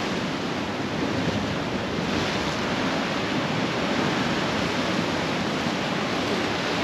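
Sea surf washing against a rocky shore, a steady rush of breaking water.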